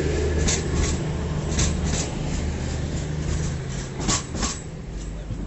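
Train moving through a station, its engine humming steadily with wheels clicking over rail joints in pairs. The engine hum cuts off near the end.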